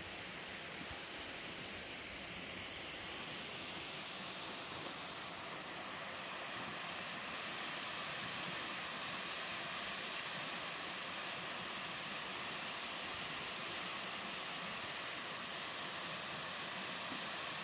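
Water of a small mountain waterfall pouring and splashing into a stream in a steady rushing hiss, growing a little louder about halfway through.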